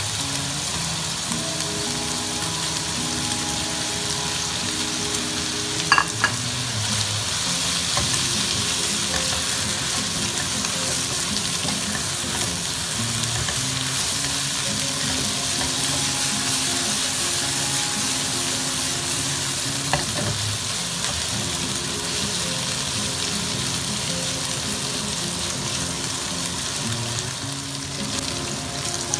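Flat beans and sliced pork sizzling as they are stir-fried with a spatula in a nonstick wok, with two sharp clacks, about six seconds in and again about twenty seconds in.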